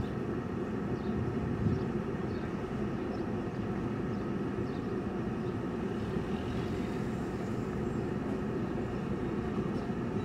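Steady car cabin noise from inside a moving car: the engine running and the tyres rolling at low speed.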